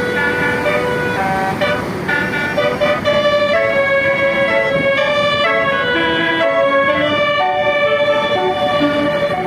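Bus 'telolet' multi-tone air horn playing a quick melody: several tones sound together and step to new notes every fraction of a second, over a steady rumble.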